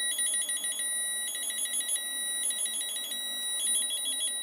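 Piezo buzzer on a breadboarded two-tone alarm circuit driven by inverting Schmitt trigger oscillators. It sounds a steady lower tone that alternates with a higher tone chopped into rapid beeps, switching back and forth about every half second.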